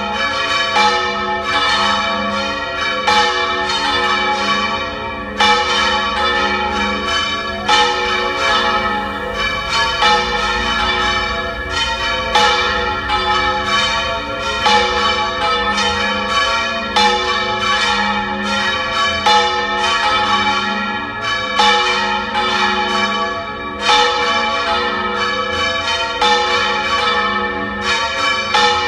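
Three church bells swung full circle in the Valencian style, each clapper striking as its bell turns over, so that rapid strokes overlap in a continuous, loud peal. The largest bell, a 512 kg bell cast in 1910, rings with a new clapper; the other two weigh 182 kg and 319 kg.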